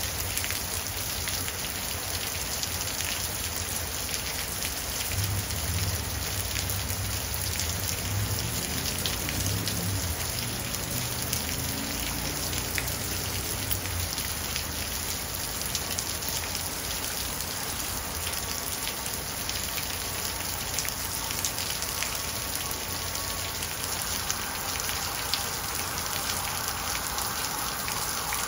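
Heavy rain pouring down onto a flagstone path and garden plants: a steady, dense hiss of drops splashing on stone and running water. A low rumble runs underneath for several seconds in the first half.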